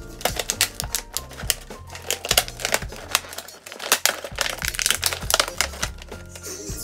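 Christmas baubles clattering and clicking against each other inside a clear tube as it is handled, a run of sharp irregular clicks. Background music with a steady beat plays under it.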